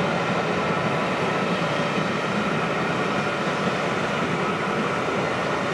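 Steady rumble of a steam-hauled passenger train's coaches rolling along the track as the rear of the train passes and draws away.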